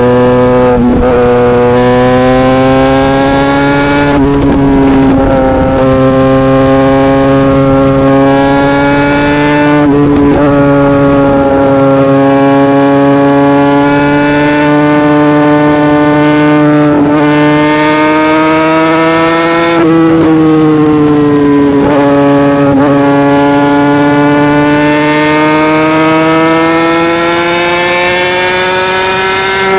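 Yamaha YZF-R6 inline-four running hard through an SC-Project aftermarket exhaust, held at high revs. The pitch climbs and falls again and again, broken by a short sharp break every few seconds.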